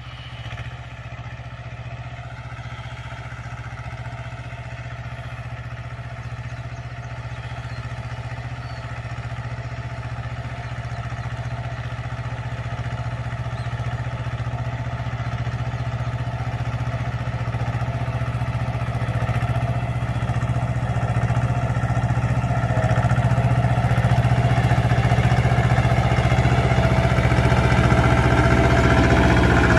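Mahindra 24 HP mini tractor's diesel engine running steadily under load while it pulls a ridger through tilled soil. It grows steadily louder as the tractor drives closer.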